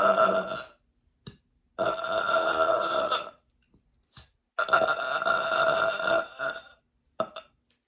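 A woman belching from a belly full of sparkling water: the tail of one burp at the start, then two long, steady-pitched burps of about one and a half and two seconds, with small short burps between them.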